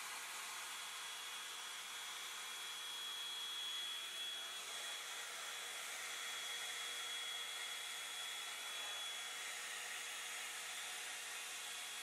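Hot Tools Pro One Step Blowout hot-air brush dryer running steadily: an even rush of blown air with a thin, high motor whine through it, heard faintly because the dryer's sound is turned down.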